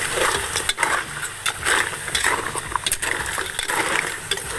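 A pan of crab pieces hissing on the fire as a little water goes in, with irregular sharp clicks and knocks of shell and utensil against the pan.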